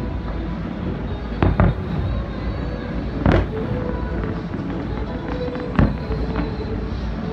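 Fireworks going off in a display: a pair of sharp bangs about a second and a half in, another about three seconds in, and one more near six seconds, over a continuous rumble and crackle.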